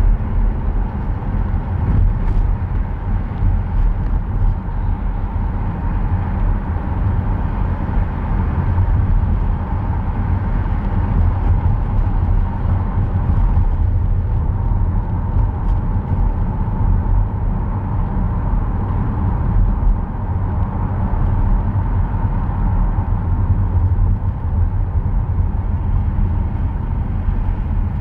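Car driving: a steady low rumble of engine and road noise, with tyre noise on a rain-wet road.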